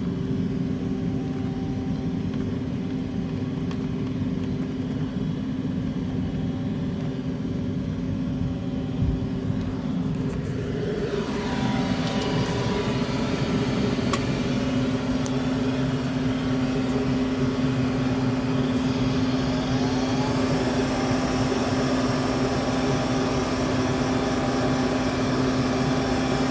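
Goodman gas furnace starting on a call for heat: the draft inducer motor runs with a steady hum, which gets louder and fuller about eleven seconds in.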